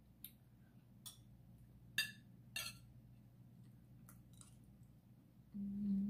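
Metal spoon and fork clicking against a ceramic plate in a few sharp taps while food is scooped up and eaten. Near the end comes a short closed-mouth 'mmm' hum while chewing, the loudest sound here.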